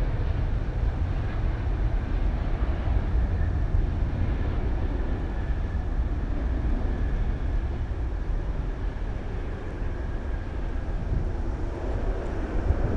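Airbus A350 airliner's Rolls-Royce Trent XWB jet engines during landing and rollout: a steady low rumble with a faint whine, holding fairly even and easing a little before picking up again near the end.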